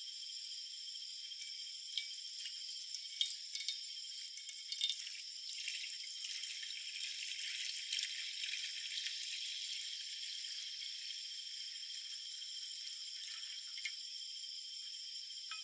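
Water poured from a metal bottle into a frying pan, splashing and trickling, busiest in the first half and easing off later. A steady insect chorus runs underneath.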